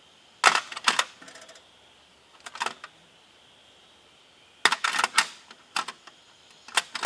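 Metal hand tools clinking and clattering in short bursts, five or so over a few seconds, as the tools are rummaged through in search of a 9/16 wrench.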